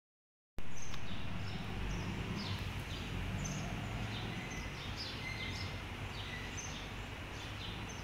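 Steady background hum and hiss, starting about half a second in, with faint, short, high falling bird chirps repeating irregularly throughout.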